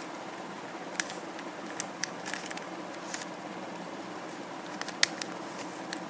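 A plastic 3x3 Rubik's cube being turned by hand to scramble it: a handful of sharp, irregularly spaced clicks as its layers turn, over a faint steady hiss.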